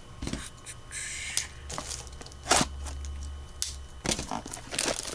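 Hands opening and handling a cardboard trading-card mini box: irregular scraping and tearing rustles with a few sharp clicks, one of the sharpest about halfway through.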